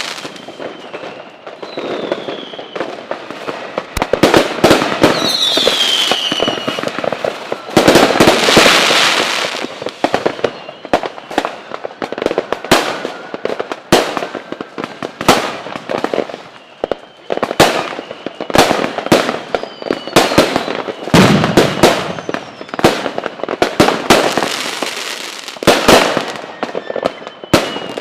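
Fireworks going off: many sharp bangs in quick, irregular succession, with bursts of crackling and a few short whistles falling in pitch early on.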